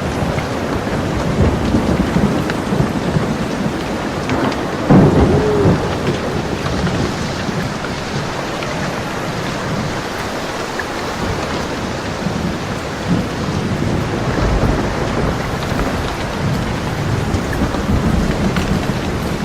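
Steady rain with rolling thunder from a thunderstorm. A sharp thunderclap comes about five seconds in and is the loudest moment, with lower rumbles swelling and fading through the rest.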